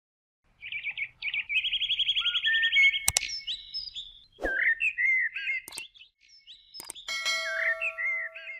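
Songbirds chirping and trilling in quick high calls, with four sharp clicks spread through them and a steady tone entering near the end.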